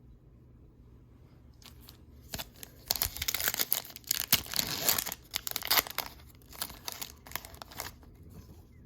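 A Panini Select trading card pack being torn open and its wrapper crinkled. The loudest tearing and crackling comes from about two and a half to six seconds in, followed by scattered crinkles.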